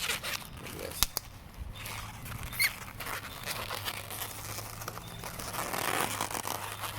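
Latex modelling balloons rubbing and squeaking as they are twisted by hand, with a sharp click about a second in and a short high squeak a little after two and a half seconds.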